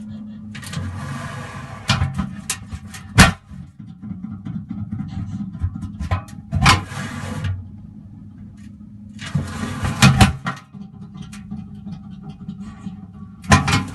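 Metal machine shop noises: machinery running with a low hum, broken by bursts of hissing noise and sharp metal clanks, the loudest clank about three seconds in.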